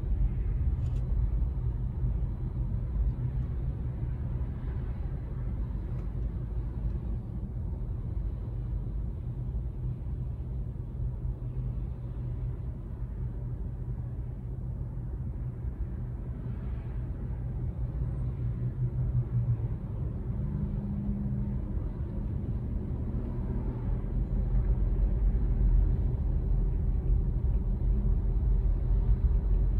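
Low, steady rumble of a car's engine and road noise heard from inside the cabin while creeping in slow traffic. A faint steady hum joins in, and the rumble grows a little louder over the last few seconds.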